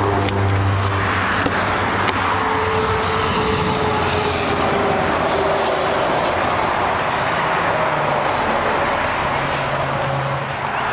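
Steady traffic noise from a nearby highway, with the drone of passing vehicles coming and going. A few faint clicks near the start as a key works a pickup's door lock.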